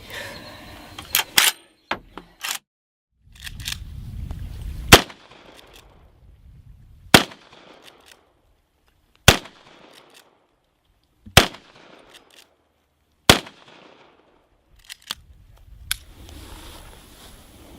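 A series of gunshots: a few sharp cracks in the first couple of seconds, then five loud shots about two seconds apart, each dying away in a short echo.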